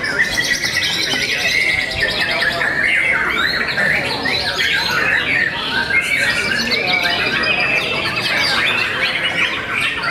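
Many caged songbirds singing at once: a dense, unbroken mix of overlapping whistles, trills and chattering phrases.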